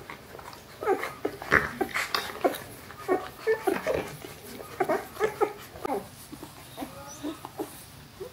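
Newborn puppies, about three days old, crying in many short, high whimpering calls, thick from about a second in and thinning out near the end.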